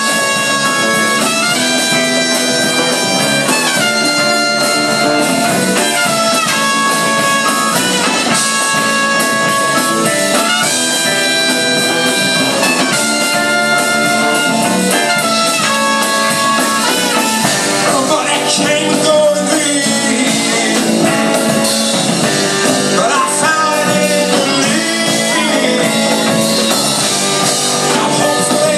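Live rock band playing a passage of a song without lyrics, a held, sliding lead melody over the full band.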